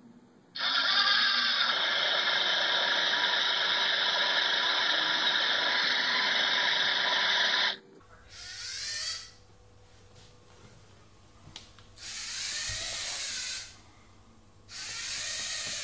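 Lego NXT Mindstorms robot's servo motors and gears whirring as it drives. One long, steady whirr lasts about seven seconds and cuts off. Three shorter bursts of whirring follow, each rising and falling in pitch.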